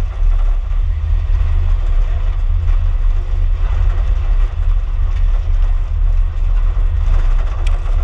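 Loud, steady low rumble of a vehicle on the move: engine, road and wind noise heard from inside, behind a shattered windshield. A brief sharp click comes near the end.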